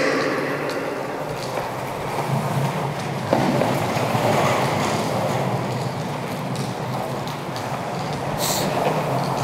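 Longboard wheels rolling on a concrete floor: a steady rumble with faint clacks as the wheels cross joints in the slab. The rumble gets louder about a third of the way in.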